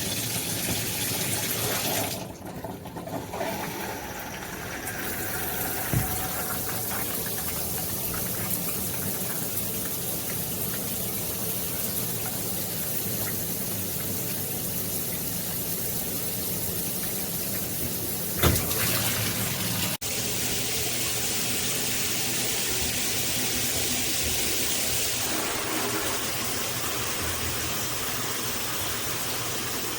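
Tudoccy shower head running, a steady rush of spraying water, with a couple of brief knocks. About 20 s in, the sound of the spray changes abruptly.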